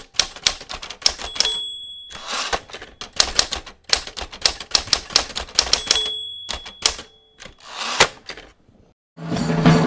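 Manual typewriter typing: runs of rapid key strikes, with a short ringing ding twice, about a second in and about six seconds in, and brief swishing slides between the runs.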